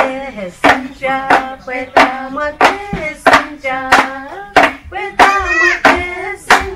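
Voices singing together over steady hand claps, about three claps every two seconds.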